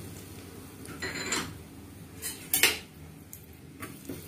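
Steel ladle clinking and scraping against the inside of an aluminium pressure cooker while spices are stirred in oil: a few separate metallic clinks, the loudest about two and a half seconds in.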